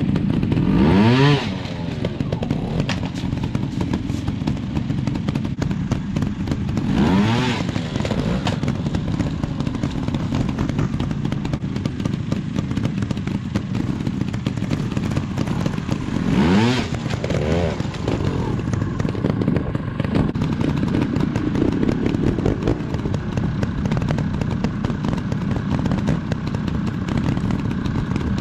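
Trials motorcycle engine running at low revs, with three quick throttle blips that rise sharply in pitch: about a second in, about seven seconds in, and about sixteen seconds in.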